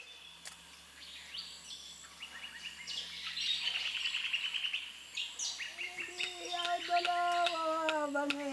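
Birds chirping and calling, a chorus of quick high chirps and trills that grows louder. About six seconds in, a held tone with overtones comes in and slowly falls in pitch.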